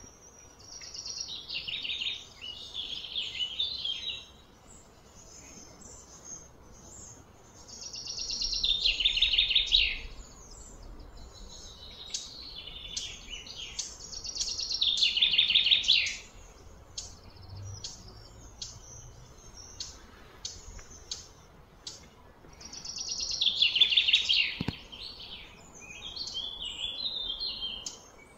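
A songbird singing loud, rapid, high-pitched phrases of a few seconds each, about five times, with quieter chirps in between.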